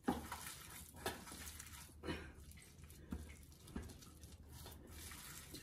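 Hands squeezing and mashing boiled potato stuffing in a steel bowl: faint, soft squelches about once a second.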